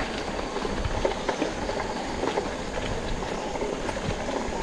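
Mountain bikes rolling over a rough dirt trail: a steady rumble of knobby tyres on the ground mixed with constant small rattles and clicks from the bikes jolting over bumps.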